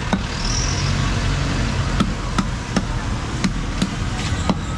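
Busy market street with motor traffic running steadily. From about two seconds in there is a run of short sharp knocks, roughly three a second.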